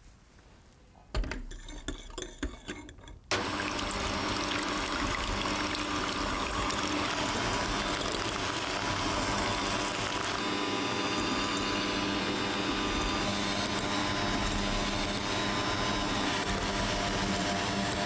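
A few clinks and knocks, then from about three seconds in an electric hand mixer starts and runs steadily, its twin wire beaters whirring through egg whites in a glass bowl as they are whipped to a foam.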